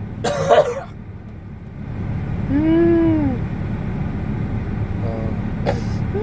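A person's vocal sound effects: a short breathy burst near the start, then one hooting tone that rises and falls about two and a half seconds in, made as a weird 'alien' noise over a steady low drone.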